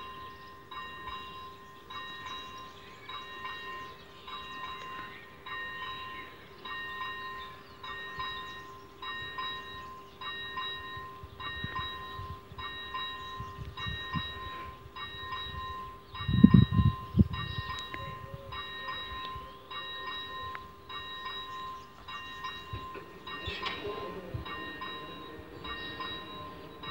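AŽD ZV-01 electric warning bell of a railway level crossing ringing in a steady repeating pulse about once a second, signalling that a train is approaching. About two-thirds in there is a brief loud low rumble.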